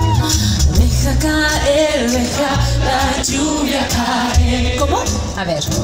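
Live pop band playing, with a woman singing lead over a heavy, steady bass.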